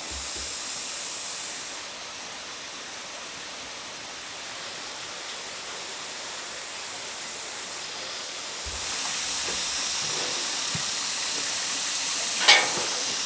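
Steady hissing noise that grows louder about nine seconds in, with a sharp knock near the end.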